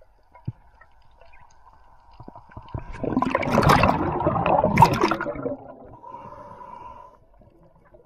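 Underwater bubbling and gurgling as air and water rush past the camera, swelling into a loud burst of about two and a half seconds in the middle, with a few faint clicks before it.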